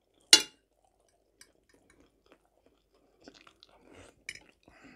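Close-up chewing and soft mouth sounds of a person eating stewed cabbage from a fork. There is one sharp click about a third of a second in, and a cluster of wetter chewing noises in the last two seconds.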